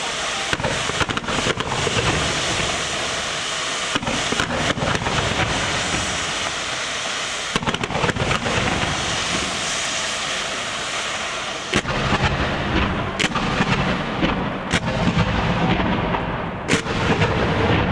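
Fireworks display: a steady crackling hiss broken by many sharp bangs of bursting shells, several coming in quick clusters. Deeper rumbling builds from about twelve seconds in, and the crackle fades near the end.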